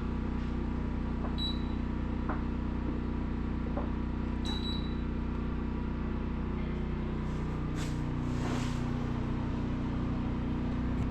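Steady electrical hum with two short high-pitched beeps, about 1.5 and 4.5 seconds in, and a few faint clicks, while an air conditioner is being switched on and fails to start.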